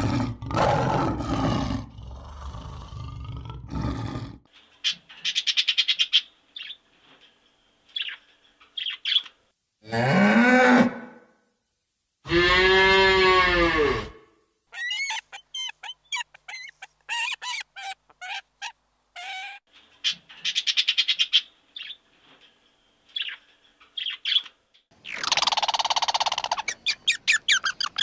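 A run of different animal calls one after another with short gaps. Two drawn-out cries rise and fall in pitch about halfway through, the second the longest and loudest, amid shorter high-pitched calls.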